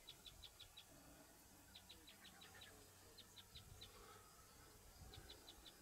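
Faint bird calling: quick runs of short, high chirps, six to eight notes each, repeated about four times over a near-silent background.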